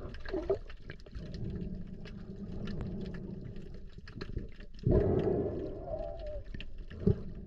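Underwater sound of a freediver breathing out slowly through his snorkel to relax before a dive: a muffled, low gurgling rumble. About five seconds in comes a louder rush of air bubbles as he ducks under with air still escaping.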